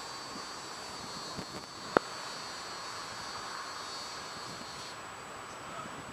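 A steady high-pitched insect trill over a low hiss, stopping about five seconds in, with one sharp click about two seconds in.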